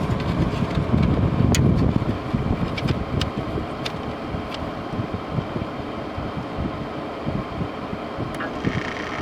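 LG LW6016R window air conditioner running on cool: a steady fan whoosh with a few sharp clicks scattered through it.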